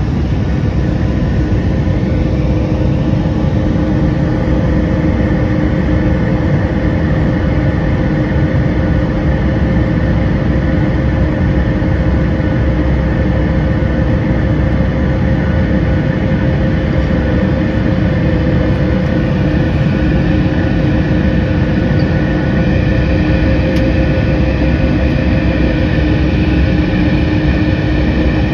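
Boeing 737 MAX 8's CFM LEAP-1B engines and rushing air heard from inside the cabin during the climb after takeoff. It is a loud, steady drone with a low rumble and several steady hum tones running through it.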